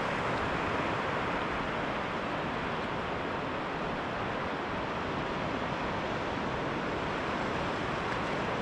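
Steady wash of surf breaking on a sandy beach, mixed with wind across the microphone, an even roar that holds level throughout.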